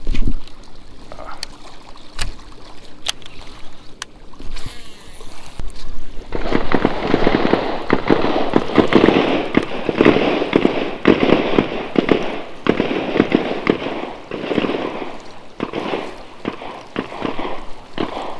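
A few sharp clicks, then from about six seconds in a dense, irregular crunching of footsteps on loose rock and gravel, walking along a riverbank.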